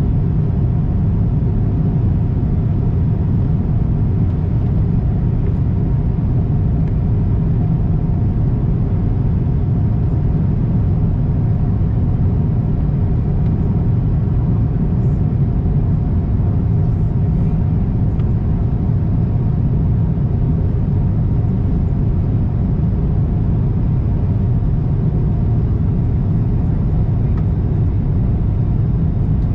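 Steady low cabin noise inside an Airbus A350-1000 in flight: airflow over the fuselage and the Rolls-Royce Trent XWB-97 turbofans, heard from a window seat over the wing, with a few faint steady tones above the rumble.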